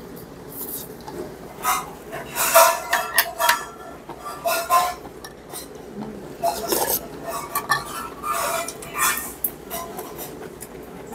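Metal spoon and chopsticks clinking and scraping against metal bowls and dishes while eating, in an irregular scatter of clinks.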